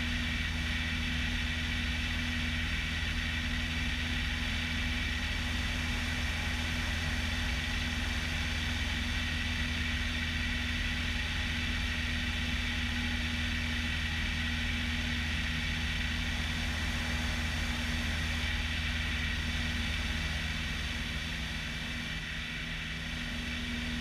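A 1975 Bellanca Decathlon 8KCAB's 150 hp Lycoming engine and constant-speed propeller running at steady power in flight, a steady drone that eases slightly near the end.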